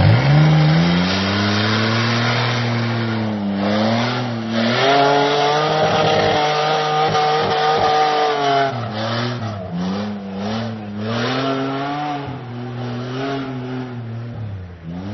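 Off-road SUV engine revving hard under load as it climbs a steep muddy bank, the revs jumping sharply at the start and then rising and falling repeatedly.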